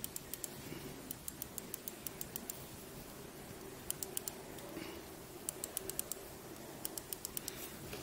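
Industrial joystick being worked by hand: bursts of quick, light clicks, several in a row each time, repeated about five times, over a faint steady hum.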